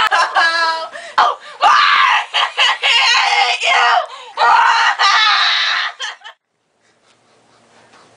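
A girl screaming and shrieking loudly for about six seconds, then cutting off suddenly.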